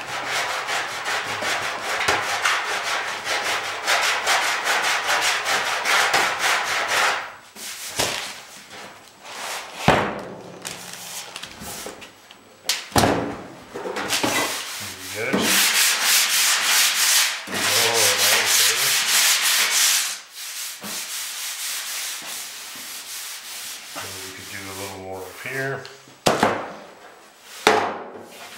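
Hand sanding a Citroën DS metal trunk lid after dent repair: quick back-and-forth scraping strokes in several long spells, with a couple of sharp knocks in between. The sanding shows up the spots that are still low.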